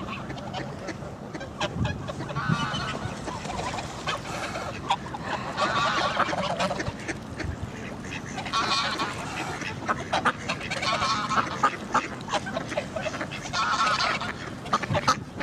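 Geese honking in about five bouts of calls spread through, with ducks quacking among them.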